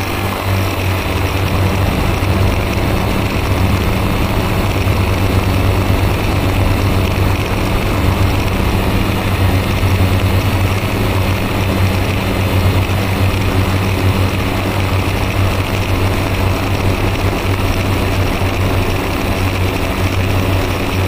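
Multirotor drone's electric motors and propellers running steadily, heard through the drone's own onboard camera, with a strong low hum over a broad whirring noise.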